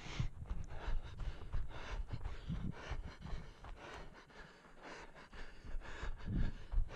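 A runner's hard, heavy breathing with the repeated thud of footfalls on dry forest floor, picked up by a head-mounted camera. Breath and steps ease for a moment a little past halfway, then pick up again.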